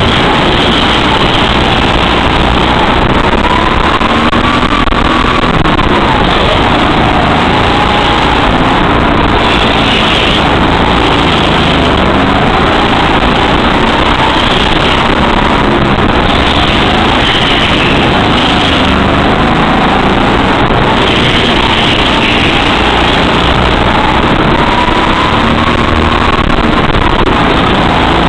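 Go-kart at speed, heard from the driver's seat: its motor note rises and falls every few seconds through the corners, over a loud, steady rush of noise.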